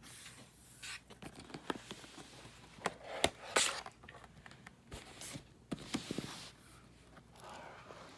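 Handling noises from a MacBook Pro laptop: scattered clicks, taps and rubbing on its case and screen, with two sharper knocks a little past three seconds in.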